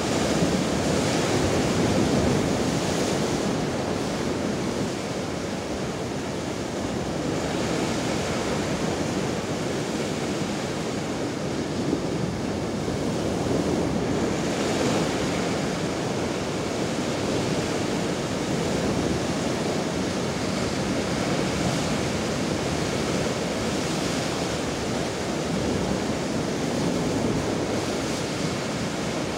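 Rough sea waves breaking and foaming over shoreline rocks: a continuous rush of surf that swells and eases every few seconds.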